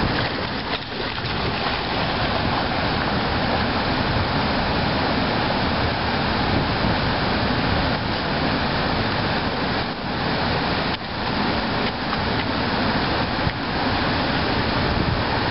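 Steady rushing of flowing river water, loud and unbroken, with a few brief knocks or dips in the sound around two-thirds of the way through.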